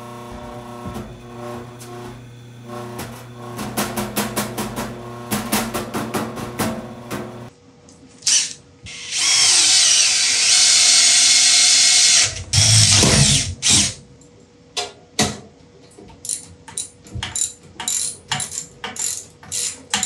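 Cordless drill-driver running a bolt into a belt sander's motor mount for about three seconds, with a shorter burst just after. In the last seconds a ratchet wrench clicks in quick, regular strokes as a bolt is tightened.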